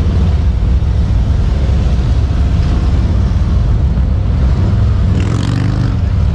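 Heavy motorcycles running at low speed through tight cone turns, a loud, steady low rumble.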